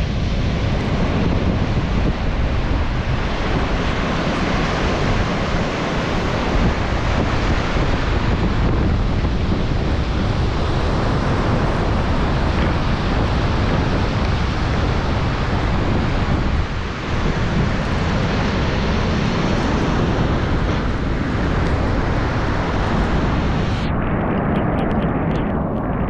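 Strong wind buffeting a GoPro microphone over the steady rush of storm surf breaking on the beach. Near the end the high hiss drops out abruptly.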